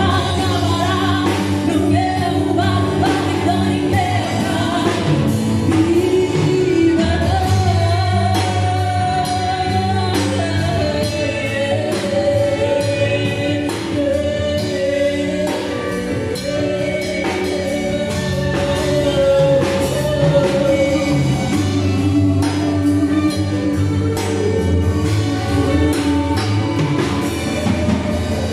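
Live band playing a slow song: female vocals singing the melody over drum kit, bass guitar, electric guitar, acoustic guitar and keyboard.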